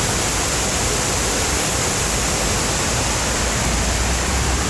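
Water pouring steadily down the walls of the 9/11 Memorial reflecting pool, a constant even rush of falling water.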